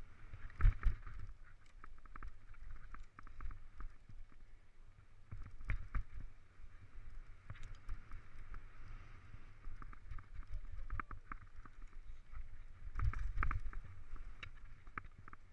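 Mountain bike riding over rough, technical singletrack, heard from a camera on the bike or rider: a constant clatter of knocks and rattles over a low rumble, with heavier jolts about a second in, again midway and near the end.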